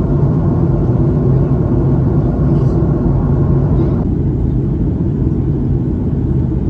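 Steady low rumble of engine and airflow noise inside the cabin of a Boeing 737-800 airliner during its descent to land.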